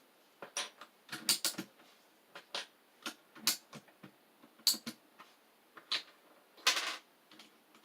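Irregular plastic clicks and snaps as keycaps are worked off and pressed onto the switches of a mechanical keyboard, with a brief scrape near the end.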